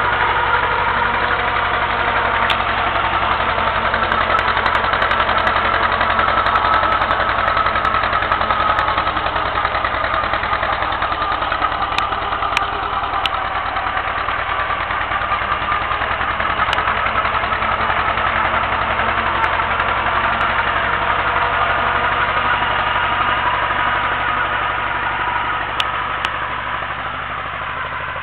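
Tractor engine running steadily while it pulls a potato digger through the soil, with a few sharp clicks over it; the sound fades a little near the end as the tractor moves away.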